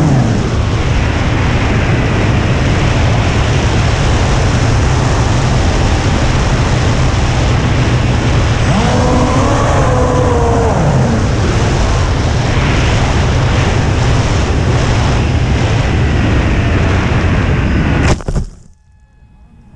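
Steady loud wind rush and electric motor and propeller drone of an FPV flying wing, picked up by its onboard camera's microphone. A wavering tone rises and falls about halfway through, and just after 18 s a sharp crack is followed by the noise cutting off abruptly, much quieter after.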